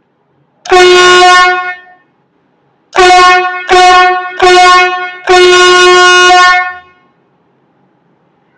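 Single-trumpet electric air horn, its built-in motor compressor driving one trumpet, sounding five blasts of a single steady note: one of about a second, then after a pause three short blasts in quick succession and a final longer blast of about a second and a half.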